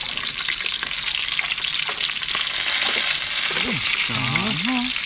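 Dried fish (daing) frying in hot oil, a steady loud sizzle and spatter.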